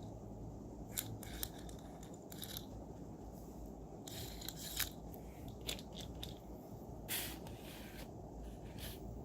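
Handling of a plastic spinning-top toy and its packaging: scattered small clicks and scrapes, with two short rustles about four and seven seconds in.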